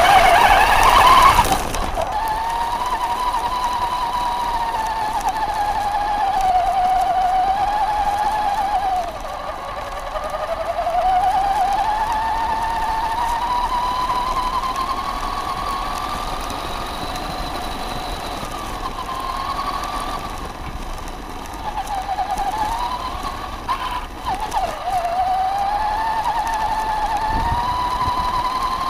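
Electric motor of a Traxxas Stampede 4x4 RC truck whining as it drives, its pitch rising and falling with the throttle. Loud water splashing in the first second or so.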